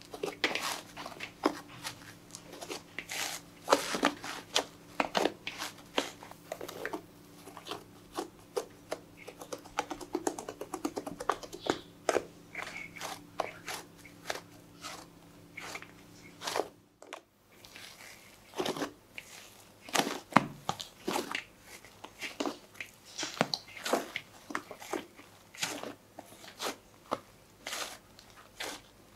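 Hands squeezing and kneading a soft, fluffy green dough in a plastic bowl, giving a dense run of irregular crackles, pops and squishes. There is a brief gap just past halfway.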